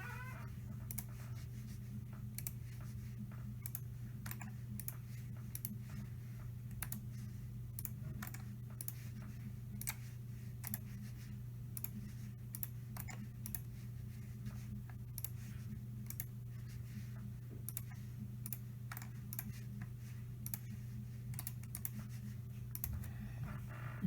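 Light, irregular clicks and taps, roughly one or two a second, like typing, over a steady low electrical hum.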